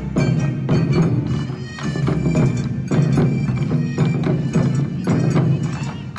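Bon odori festival music: a sustained wind-instrument melody over repeated sharp percussion strikes.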